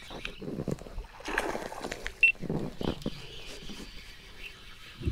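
A hooked fish splashing at the water surface in irregular bursts as it is fought toward a kayak.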